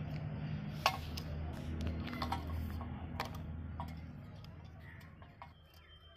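Scattered light clicks and taps from the homemade syringe-hydraulic toy excavator's metal arm and bucket as it is worked, over a low steady hum that fades near the end.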